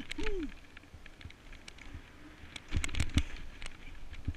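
Snowboard sliding through deep powder snow, a rush of snow with many scattered clicks and knocks. A short falling pitched squeal comes just after the start, and a louder burst of rushing and knocks about three seconds in as the board brushes close to snow-laden branches.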